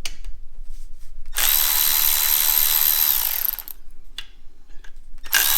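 Electric power tool spinning out bolts during an engine teardown: two runs of a steady high whine. The first winds down about three and a half seconds in, and the second starts near the end.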